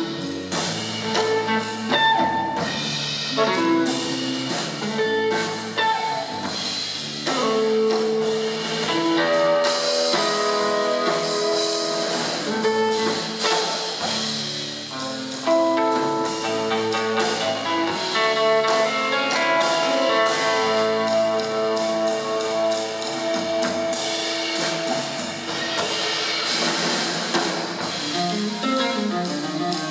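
Live jazz guitar trio playing: electric guitar melody lines over bass and a drum kit with cymbals.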